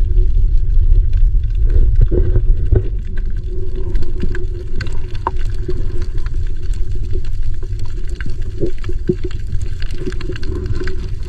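Underwater noise picked up by a camera in a waterproof housing: a loud, steady low rumble with a faint hum and many scattered short clicks.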